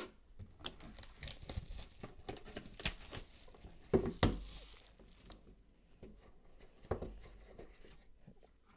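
A cardboard box of football trading cards being opened by hand: tearing, rustling and scraping of cardboard as the inner box is pulled out, with a few sharper taps and knocks, the loudest about four seconds in, then quieter handling.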